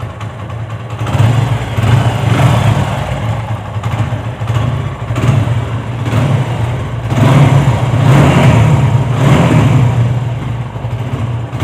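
TVS Apache motorcycle's single-cylinder engine running, its revs rising and falling several times. It runs without the rattling 'bad-bad' noise it had before, which was cured by an engine rebuild and a new clutch bearing.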